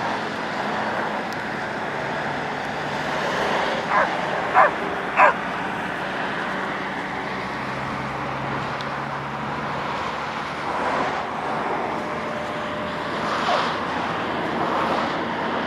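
A dog barking three quick times about four seconds in, each bark short and falling in pitch, over a steady outdoor background hiss.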